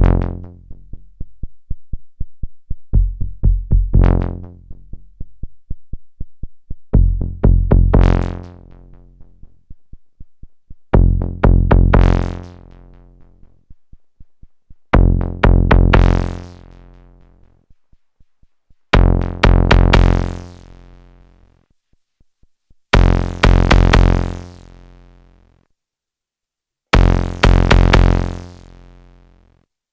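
Eurorack modular synthesizer patch played through an ST Modular EFI filter: a phrase repeating about every four seconds, a quick run of short notes swelling into a held tone that dies away. The sound grows brighter about halfway through as the filter and envelope knobs are turned.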